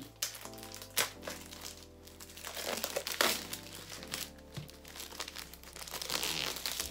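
Plastic packaging crinkling and rustling as it is handled and opened, with sharper crackles about one second and three seconds in. Faint background music plays underneath.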